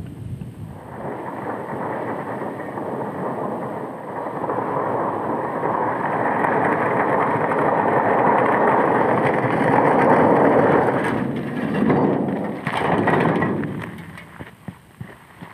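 A road-closed sign being dragged over a gravel road, a continuous scraping that grows louder as it is brought closer. Near the end come a few shorter scrapes as it is set down and stood up on its metal stakes.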